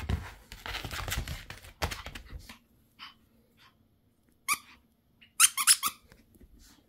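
Chihuahua playing tug with a plush toy: scuffling and rustling on the mat for the first couple of seconds, then scattered short high squeaks and a quick run of louder squeaks about five and a half seconds in.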